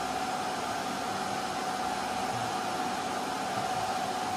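Steady rushing noise of electronic equipment cooling fans, with a steady mid-pitched tone running through it.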